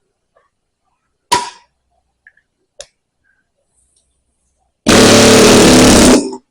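Pneumatic air hammer hammering loudly in one burst of about a second and a half near the end, driving loose the steel head of a hydraulic tilt cylinder. Earlier comes a single sharp metallic clank that rings briefly, then a lighter tap.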